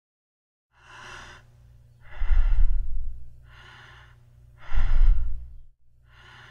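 A person's normal resting breathing (eupnea): slow, even breaths in and out, alternating softer and louder, about one full breath every two and a half to three seconds. It starts just under a second in.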